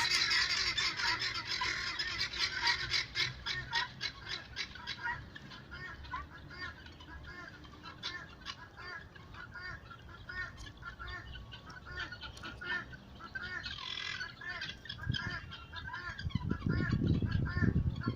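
Many birds calling at once, with short squawking calls overlapping thickly and busiest in the first few seconds. A louder, lower sound comes in about three seconds before the end.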